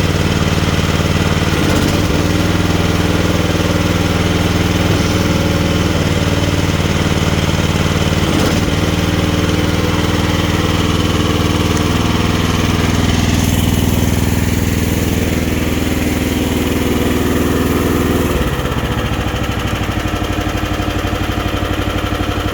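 Mini excavator engine running steadily, its note shifting several times as the hydraulics are worked, then settling lower near the end.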